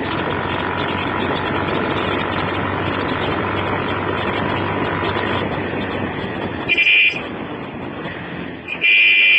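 Steady road, wind and engine noise from a moving vehicle, then a vehicle horn sounded twice near the end: a short toot, then a longer blast.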